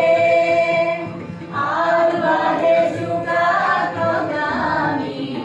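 A group of women singing a song together in chorus into microphones, accompanied by a harmonium, with a short break between phrases about a second and a half in.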